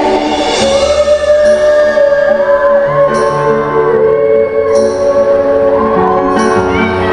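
Live band playing a slow pop ballad, with long held sung notes and vocal slides over sustained accompaniment and cymbal strokes.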